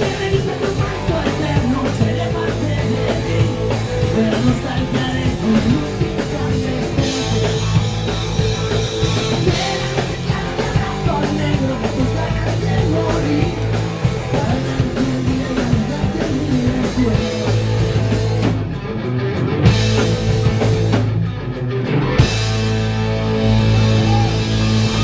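Live rock band playing loud, distorted electric guitars, bass and drum kit, with a male singer shouting into a microphone. Near the end the cymbals stop briefly twice before the band comes back in on a heavier riff.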